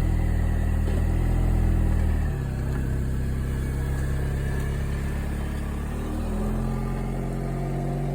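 Car engine running at low revs, most likely the Mini Cooper being moved; its note drops and quietens about two seconds in, then rises again about six seconds in as the car is manoeuvred.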